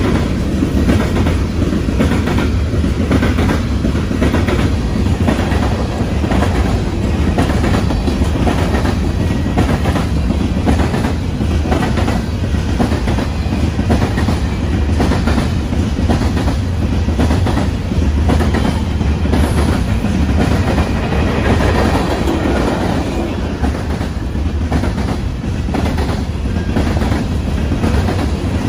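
Loaded covered hopper cars of a freight train rolling past close by: a steady heavy rumble with a continuous run of clacks as the wheels cross rail joints.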